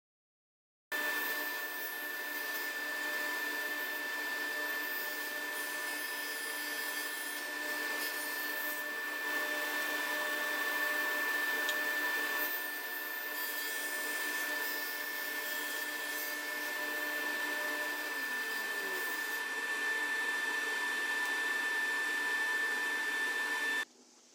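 Powermatic table saw running steadily with a high whine over a steady rushing noise. A lower tone slides down in pitch about 18 seconds in, and the sound cuts off suddenly near the end.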